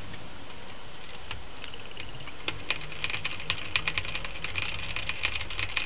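Loose laptop keyboard being handled, its plastic keys clicking and rattling in an irregular patter that grows busier from about two seconds in.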